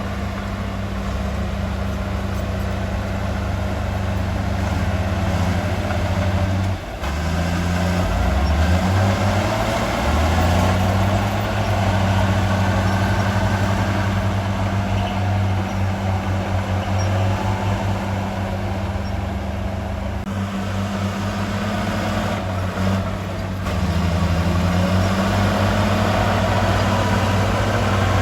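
Heavy diesel engine of earthmoving machinery running steadily, its pitch dropping and rising as it is throttled down and up about seven seconds in and again near twenty-three seconds.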